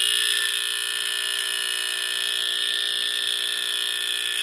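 Edwards 217 smoke alarm sounding on test: one continuous, high-pitched piercing tone that starts abruptly and cuts off suddenly near the end.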